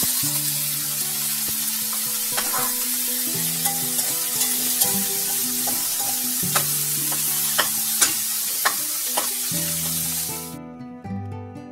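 Raw ground pork sizzling loudly as it hits hot oil in a wok, with a metal spoon clicking and scraping against the pan as the meat is stirred and broken up. The sizzling cuts off suddenly about ten and a half seconds in, leaving background guitar music.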